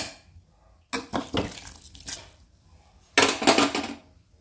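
Metal ladle stirring wet chopped vegetables in an aluminium pressure cooker, scraping and clinking against the pot in a few short bursts, the longest and loudest near the end.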